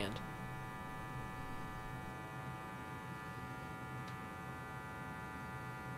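Solid-state Tesla coil running at low input voltage, its small streamer breakout at the top terminal giving a steady, even buzz.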